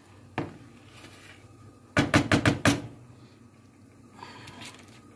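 Plastic spatula knocking against a nonstick frying pan while scrambled eggs are stirred: one knock early, a quick run of about six knocks around two seconds in, and a couple of lighter ones near the end.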